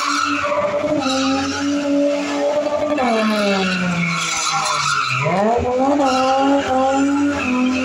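V8-swapped BMW E30 drifting: the engine is held at high revs while the rear tyres spin and squeal. The revs sag about three seconds in, then climb sharply back up about two seconds later.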